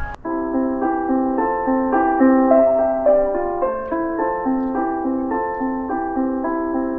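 A municipal disaster-prevention wireless (bōsai musen) chime: an electronic keyboard-like melody of held notes in chords, played over public-address loudspeakers. It begins abruptly and carries almost no deep bass or high treble.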